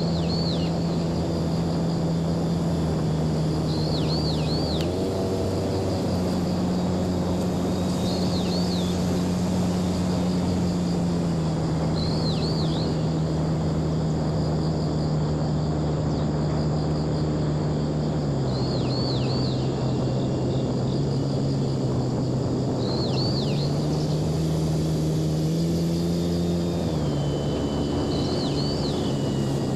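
Electric motor and propeller of a homemade FT Simple Cub RC airplane in flight, a steady buzzing drone that steps down and back up in pitch several times as the throttle is changed. A faint high double chirp repeats about every four seconds.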